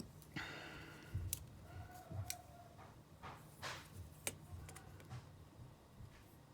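Faint handling sounds of small repair tools and phone parts: a few sharp light clicks and two short scrapes.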